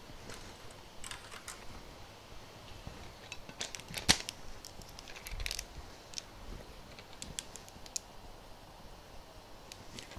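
Light clicks and knocks of a glass vodka bottle and a spirit dispenser being handled while the dispenser is fitted onto the bottle's neck, with one sharp click about four seconds in.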